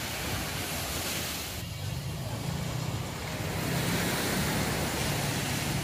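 Surf washing on a beach, with wind on the microphone. A low steady hum joins in under it from about two seconds in.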